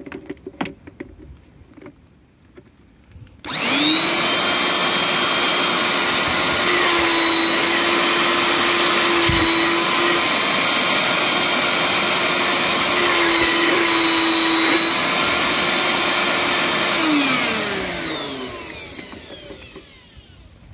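Electric air blower running with its hose pushed into the engine's oil filter mount, blowing the remaining oil out of the engine after draining. It starts about three and a half seconds in with a steady whine, its pitch shifting slightly twice, then winds down with a falling whine near the end.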